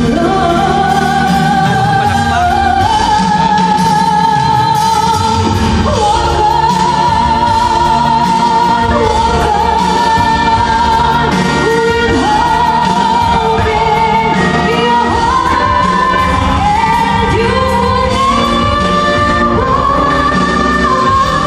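Live pop ballad: a woman belts long held notes with vibrato, each phrase climbing higher in pitch, over loud band accompaniment.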